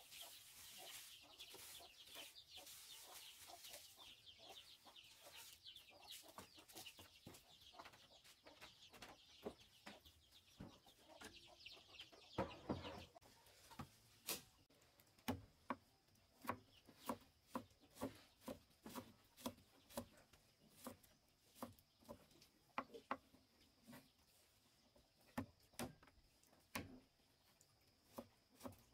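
Quiet at first, with faint clucking and the small clicks of garlic cloves being peeled by hand. About halfway through, a cleaver starts chopping garlic on a wooden stump block: sharp, even knocks about twice a second.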